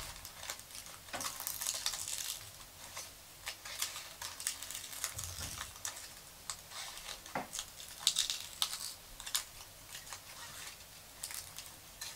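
Small scissors snipping short cuts into a paper egg shape: an irregular run of crisp little snips and clicks.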